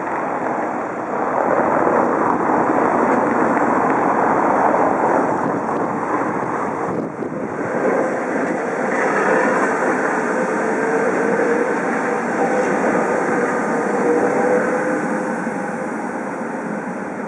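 Tatra T3 tram passing close on street track, its wheels running loudly over the rails. About eight seconds in, a wavering whine joins the rolling noise and carries on as the tram pulls away.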